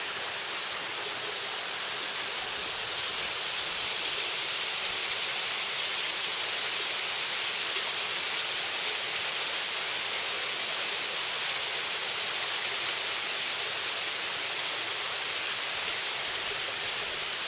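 Waterfall pouring into a rock pool: a steady rushing hiss of falling water, growing a little louder over the first few seconds and then holding even.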